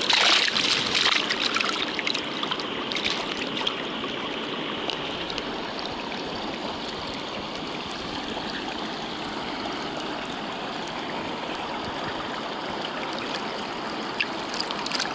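Stream water rushing steadily around a landing net held in the shallows, with louder splashing in the first second or two.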